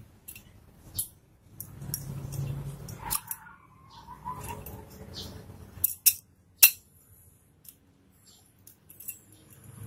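Small metal TS125 carburetor parts being handled and pressed into the carburetor body by hand: scattered sharp metallic clicks and clinks, the loudest near the middle, among softer rubbing and handling sounds.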